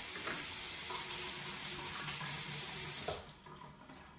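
Kitchen tap running steadily into a sink, shut off abruptly about three seconds in.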